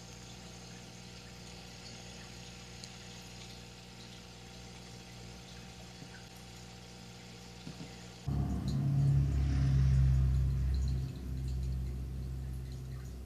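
Aquarium filter and pump running: a steady hum with water trickling. About eight seconds in, a much louder, lower hum takes over.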